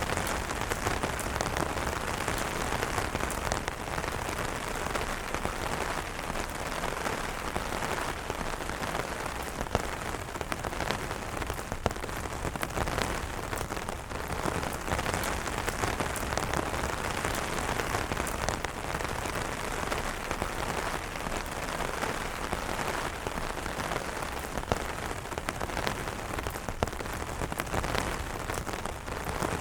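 Steady heavy rain pattering on umbrella fabric, a dense patter of drops with a few sharper single drop taps.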